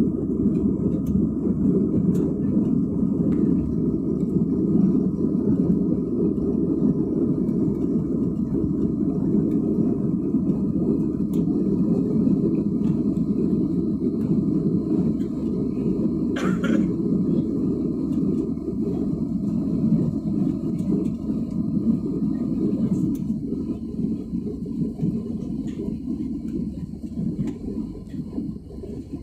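Jet airliner cabin noise during the climb after takeoff: a steady low rumble of the engines and airflow, with one brief higher sound about sixteen seconds in. The rumble grows quieter over the last few seconds.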